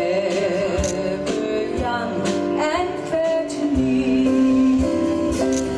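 A woman singing through a microphone with a live band of electric guitar, bass guitar and drums, holding long notes over a steady beat.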